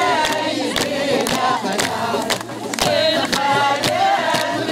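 A crowd singing in chorus over a steady beat of hand-held frame drums, with hand clapping.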